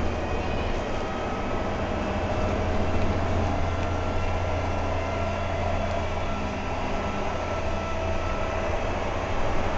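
Interior of a SICCAR 177 city bus on the move: its diesel engine running steadily with a low drone and a steady whine, over road and body noise.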